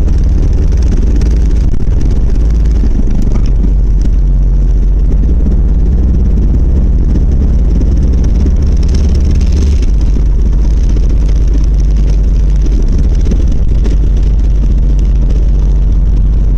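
1990 Volvo 740 running with a steady, heavy low vibration and rattle from its driveshaft, which the owner traced to a worn center driveshaft support bearing.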